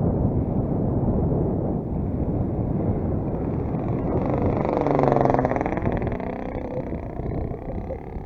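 A large RC plane's 35cc NGH single-cylinder gas engine flies past overhead, swelling to its loudest about five seconds in and then fading. Heavy wind buffets the microphone throughout.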